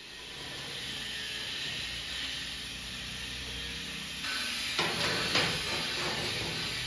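Steel flat-bar slats being handled and set into the notched supports of a welded steel water pan, with a couple of sharp metal knocks about five seconds in, over a steady hiss.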